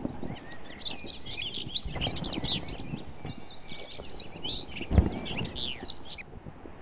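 Chorus of small songbirds chirping and twittering, many quick overlapping calls, over a low rumble of noise. A single thump about five seconds in is the loudest sound.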